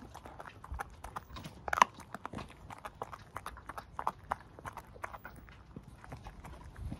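Staffordshire bull terrier gnawing a raw pork trotter: irregular crunches and clicks of teeth on the trotter, with one louder crunch about two seconds in.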